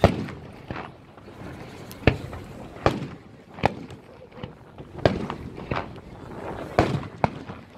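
Aerial firework shells bursting overhead: a string of sharp bangs about once a second, with smaller pops between them.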